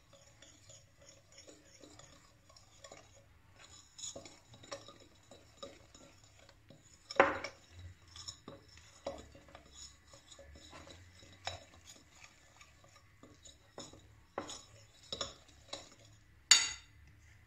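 A metal hand-mixer beater, worked by hand, stirring flour into egg batter in a glass bowl: irregular clinks and scrapes of metal against glass, with two louder knocks, one about seven seconds in and one near the end.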